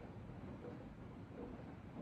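Steady rain falling, heard from inside a cabin: a faint, muffled, even wash of sound.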